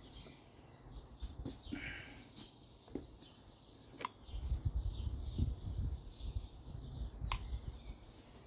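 Quiet handling noises from working on a small two-stroke engine by hand: light clicks and taps of parts, a dull low rumble from about four seconds in, and one sharper click near the end.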